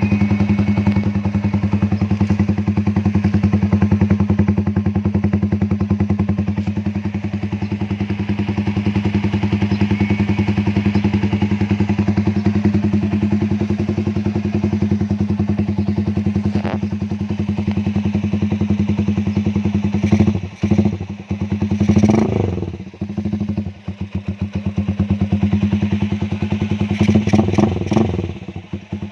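Kawasaki TMX 155 single-cylinder four-stroke engine idling steadily through an open aftermarket CS Pro GP Warrior exhaust pipe. About two-thirds of the way in the throttle is blipped a few times, the pitch rising and falling, and again briefly near the end.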